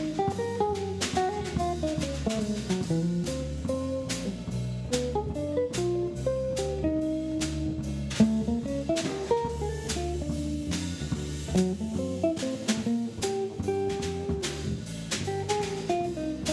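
Jazz trio playing live: an archtop guitar picks a single-note melody line over bass and a drum kit, with regular cymbal strokes keeping time.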